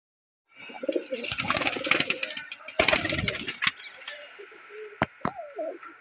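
Domestic pigeons cooing in low, falling notes, with two loud stretches of scuffling, clattering noise about a second in and near the middle, and two sharp knocks near the end.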